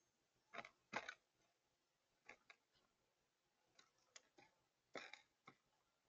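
Faint, irregular clicks and taps of a mourning dove's beak pecking at seeds and peanuts on a feeder tray, some coming in quick pairs.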